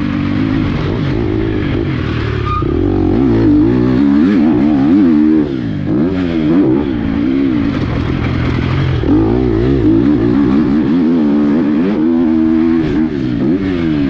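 2023 GasGas MC 250F motocross bike's single-cylinder four-stroke engine being ridden hard, revving up and down over and over, its pitch rising and falling every second or so.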